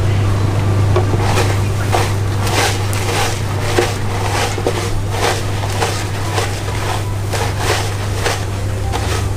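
Hands working through a plastic tub of panko breadcrumbs, breading pork for frying: a rhythmic crunchy rustle, about three strokes every two seconds. A steady low hum runs underneath.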